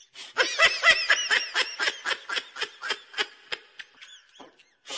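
A person laughing: a quick run of high-pitched 'ha's, about five a second, loud at first and trailing off toward the end.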